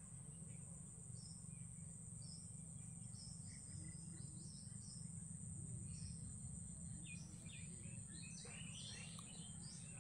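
Steady high-pitched insect drone, with short bird chirps scattered through it that grow more frequent near the end, over a low steady background rumble.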